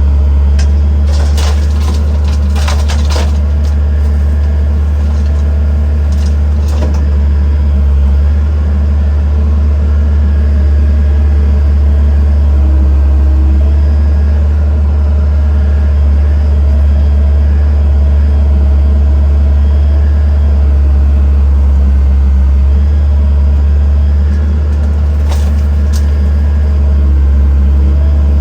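Heavy diesel engine running steadily at low revs, with a few sharp knocks in the first few seconds, once around seven seconds and again near the end.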